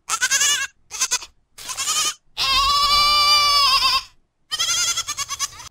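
Young goat (kid) bleating, from recorded sound-effect clips played one after another. There are three short bleats, then one long wavering bleat, then one more bleat near the end.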